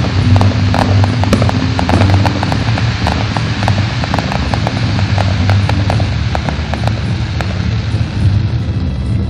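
Fireworks crackling: a dense run of sharp crackles from crackling stars and fountains over a steady low rumble, thinning out near the end.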